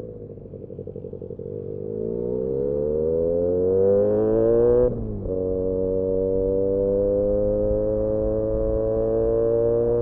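Benelli 302S 300 cc parallel-twin engine through an Austin Racing aftermarket exhaust, pulling from low, pulsing revs with pitch rising for about three seconds. An upshift about five seconds in drops the revs suddenly. The engine then pulls on in the next gear, its pitch slowly climbing.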